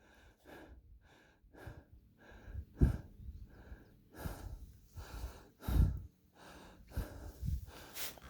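A person breathing hard in quick, even pants, about two breaths a second, with two heavier low thumps about 3 and 6 seconds in.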